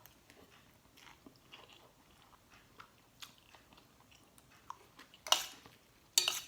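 A person chewing food close to the microphone, likely spicy papaya salad with soft-boiled chicken feet. Soft, wet chewing clicks come throughout, and two louder, sharper mouth sounds come near the end.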